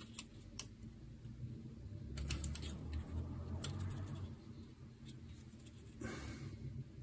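Handling noise from a glass tube being turned in the fingers with a rolled paper diffuser inside: a few light clicks, a soft low rubbing about two to four seconds in, and a brief scrape about six seconds in.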